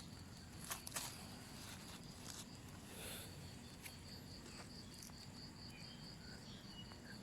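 Faint insect chirring in woodland: a thin, steady high trill that breaks into even pulses, about four a second, in the second half. A few soft rustling clicks, like steps in leaf litter, come in the first half.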